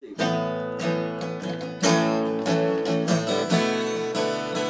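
Music: an acoustic guitar strumming chords in a steady rhythm.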